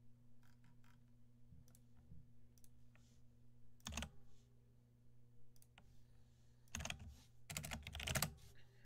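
Faint scattered clicks and taps of a computer keyboard and mouse in use, with a louder burst of handling noise about four seconds in and a few more near the end, over a steady low electrical hum.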